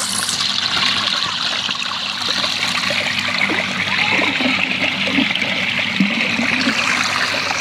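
Water pouring from a pool's outlet hole and running steadily along a narrow concrete channel, a constant rushing trickle.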